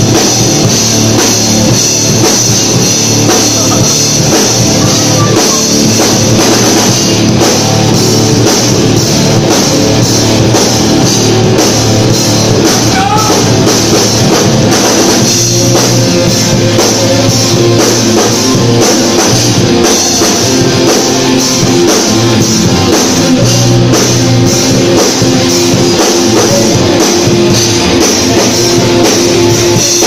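Live rock band playing loud: electric guitars, bass guitar and drum kit, with a woman singing into a microphone.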